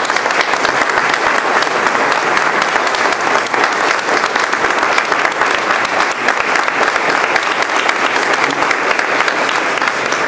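An audience applauding steadily: many hands clapping together, dying away at the very end.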